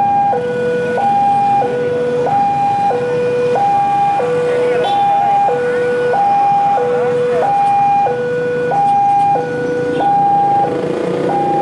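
Railway level-crossing warning alarm sounding a steady two-tone hi-lo signal, switching between a higher and a lower tone about every two-thirds of a second, warning that a train is approaching.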